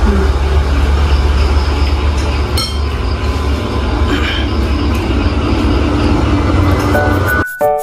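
Steady low rumble of background noise with a single ringing clink of tableware about two and a half seconds in. Near the end the rumble cuts off abruptly and keyboard background music starts.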